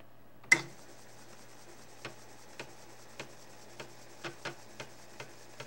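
MPI Model 92 5.25-inch floppy drive booting DOS: a sharp click about half a second in, then a low steady hum as it runs, with about ten short, irregularly spaced ticks from the head stepper as the heads seek across the disk.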